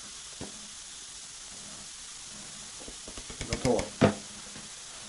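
Dark beer being poured into a multicooker bowl, fizzing steadily as the foam builds. About three and a half seconds in there is a quick run of clicks, then one sharp knock as the bottle is lifted away.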